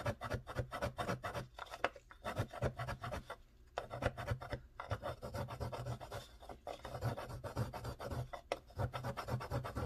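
Chalk pastel stick rubbed hard against a round metal mesh pastel sharpener, a rapid, continuous run of gritty scraping strokes as the stick is ground to a point.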